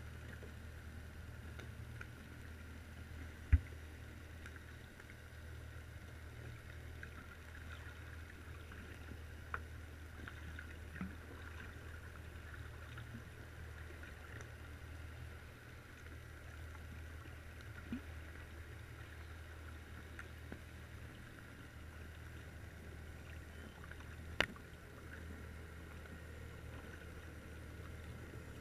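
Underwater sound picked up by a camera in a waterproof housing resting on a rockpile: a steady low hum with faint crackling. A few sharp clicks, the loudest about three and a half seconds in and another near the end.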